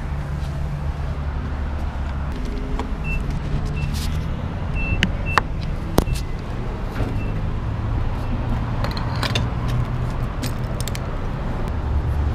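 At a gas station, a steady low rumble runs throughout. A few seconds in come a series of short high beeps from the fuel pump's keypad, along with a few sharp clicks.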